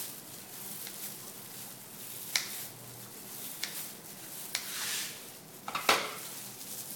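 Kitchen scissors snipping fresh coriander sprigs, with the rustle of plastic food-prep gloves handling the herbs. There are several sharp clicks, the loudest near the end.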